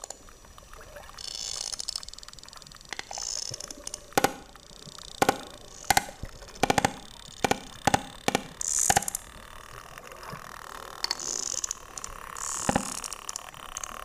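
Sperm whales clicking underwater: a string of sharp clicks at uneven spacing, most of them bunched in the middle, with one more near the end. Bubbling, rushing water runs under the clicks.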